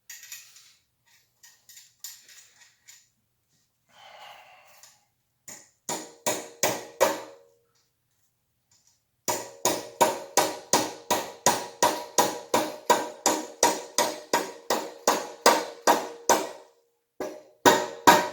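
Hammer tapping a metal fitting into a bicycle frame tube: a few blows, then a steady run of about three strikes a second, each with a short metallic ring. The part is going in crooked.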